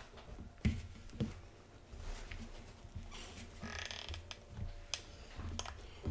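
Quiet handling noises at a craft table: two sharp knocks about a second in, a stretch of dry rustling in the middle as dried moss and mushroom pieces are handled, and a few small clicks from a hot glue gun and materials being set down.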